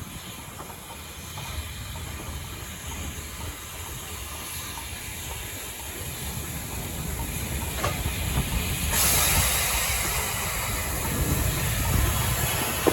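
USATC S160 2-8-0 steam locomotive working at low speed with a low rumble, then a sudden loud steam hiss about nine seconds in that carries on.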